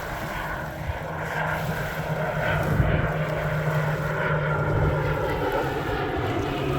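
Low-flying floatplane's propeller engine droning steadily, growing louder as it approaches.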